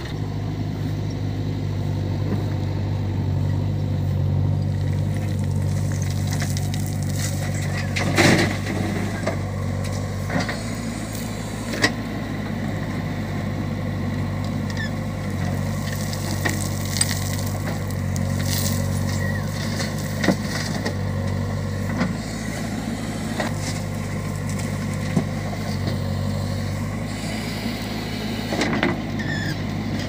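JCB 3DX backhoe loader's diesel engine running steadily, its note rising and falling in level several times as the backhoe arm digs. Several sharp clanks of metal on metal cut through it.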